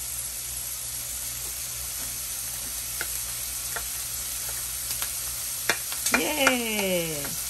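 Garlic chives sizzling in a hot frying pan as they are pushed in from a bowl with a wooden spatula, with a few sharp knocks of the spatula against the bowl and pan. Near the end a voice gives one long sound falling in pitch.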